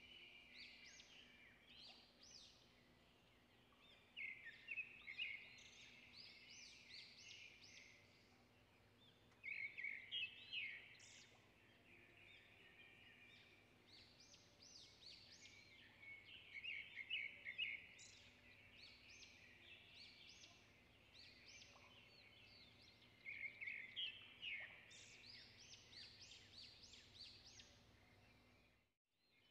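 Small birds chirping in short bursts of quick, high notes, one burst about every six seconds, over a faint steady hum.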